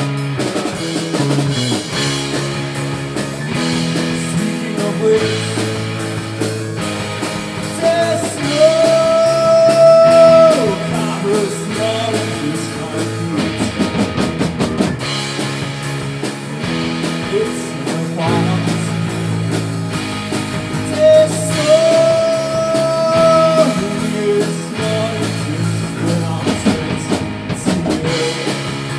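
Rock band playing live: electric guitar, bass guitar and drum kit with male lead vocals. A long note is held twice, about a third of the way in and again about two-thirds through.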